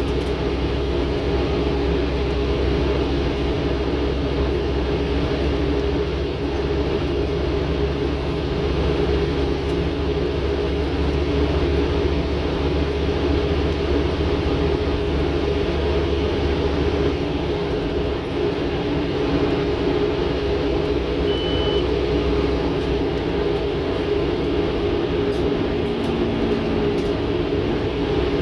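Scania N230UD OmniCity bus heard from inside the saloon while under way: the five-cylinder diesel engine drones steadily over road and body noise. The deep rumble eases about two-thirds of the way through. The uploader calls this bus a tired beast.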